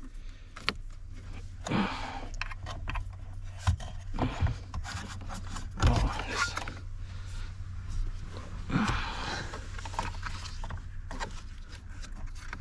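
Hands working plastic wiring-harness connectors in a cramped dash space: irregular scrapes, rubs and small plastic clicks as a connector is worked toward its socket, over a steady low hum.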